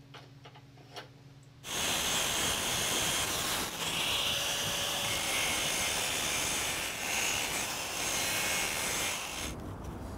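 A few faint ticks from a tap cutting threads in a steel block, then, about two seconds in, a loud, steady crackling hiss of stick (arc) welding on the steel frame, which stops abruptly near the end.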